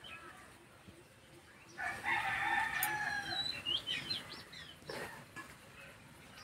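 A rooster crowing once, about two seconds in, one long call of about a second and a half, followed by a few short high bird chirps.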